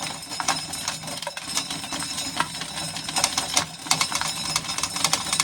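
Corn sheller working through ears of corn: a continuous irregular clatter of clicks and rattles as kernels are stripped and fall.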